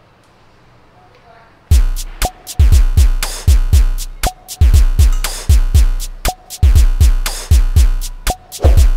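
Near-silent room tone, then a little under two seconds in, outro music starts suddenly: an electronic hip-hop style beat with heavy bass drum hits whose pitch drops after each hit, crisp percussion and a short repeating tone.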